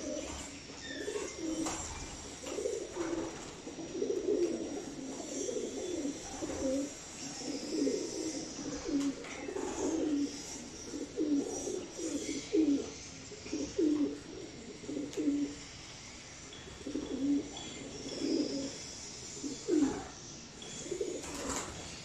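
A flock of caged homing pigeons cooing, with many short, overlapping low coos one after another and a brief lull about two-thirds of the way through.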